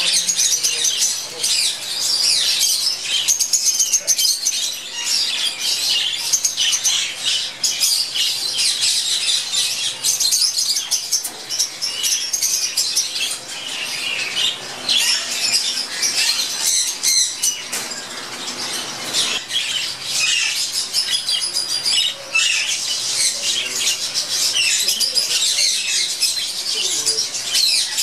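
A flock of caged budgerigars chattering: a dense, steady mix of warbles, chirps and squawks.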